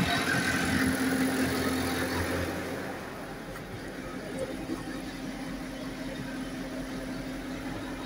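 JCB 3CX backhoe loader's diesel engine idling steadily, turning quieter about three seconds in as it is heard from inside the closed cab rather than from beside the machine.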